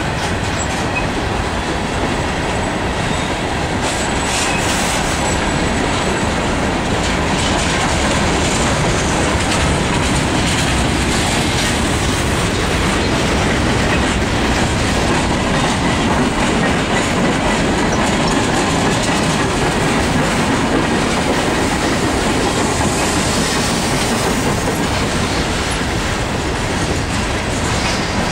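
Cars of a long CSX manifest freight train rolling steadily past, steel wheels running over the rails in a continuous loud clatter.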